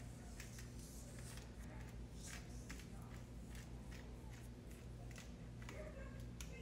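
Seasoning shaker shaken over the meat, then a hand spice grinder twisted: a faint, irregular scatter of dry crunching clicks over a steady low hum.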